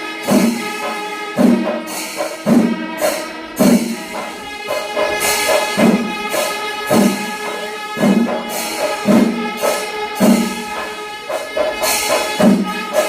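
Kerala temple festival percussion ensemble: heavy drum strokes about once a second under continuous cymbal jingling, with held wind-instrument tones over them.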